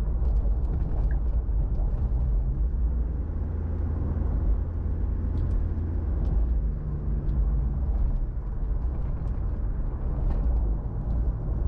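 Steady road and engine noise heard inside a moving car: a low rumble of tyres on asphalt, with faint ticks here and there.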